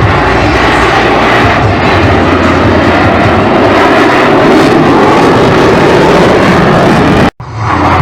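Loud aircraft engine noise, steady throughout, that cuts out abruptly for a split second near the end.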